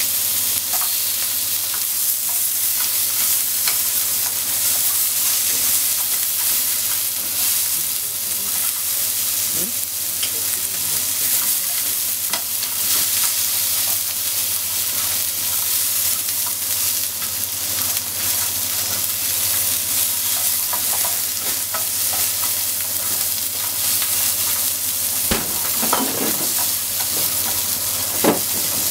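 Sliced wiener sausages and onion wedges sizzling steadily in a frying pan as they are stirred with cooking chopsticks, with light clicks throughout and a few sharper knocks near the end.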